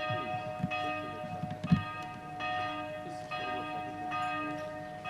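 Church bells ringing, re-struck about every 0.8 s, with a thump about 1.7 s in.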